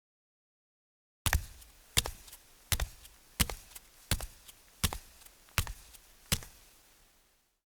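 Bare feet walking on concrete: eight steady footsteps about 0.7 s apart, each a sharp slap with a softer scuff after it, starting about a second in.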